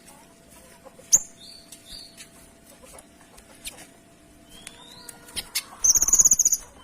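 Kinoy songbird calling with short high chirps and quick down-slurred whistles, then a loud, rapid high-pitched trill near the end. A single sharp click comes about a second in.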